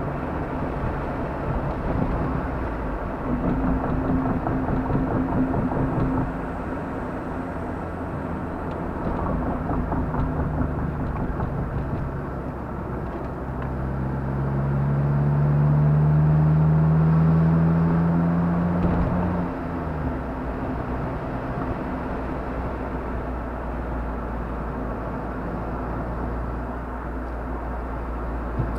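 Car engine and road noise heard from inside the cabin while driving. About halfway through, the engine note climbs steadily and grows louder as the car accelerates, then drops suddenly.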